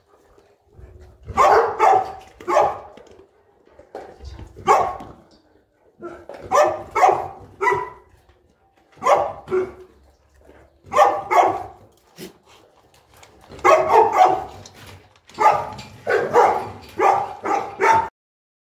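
Boerboel dogs barking in repeated bouts of several barks, with short pauses between bouts; the barking cuts off suddenly near the end.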